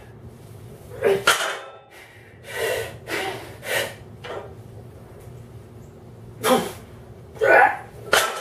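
A man's hard, forceful breathing between heavy deadlift reps: sharp gasps and blown-out breaths, several of them. Near the end come two louder grunted exhales that drop in pitch. This is the strain of a near-maximal set.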